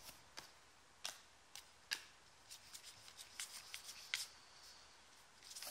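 Basketball trading cards being slid and flicked through in the hands: a scattering of faint, short ticks and scrapes of card against card.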